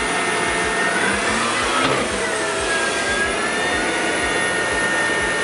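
Tank engine running under load with a high whine that drops and then climbs back in pitch about two to four seconds in, as the tank pivots in place on its tracks.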